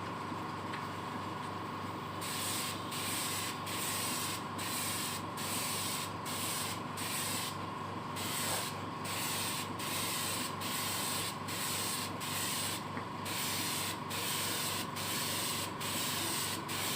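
Paint being sprayed onto wood in short, repeated hissing bursts, starting about two seconds in and going on and off roughly once or twice a second. A steady machine hum with a high whine runs underneath throughout.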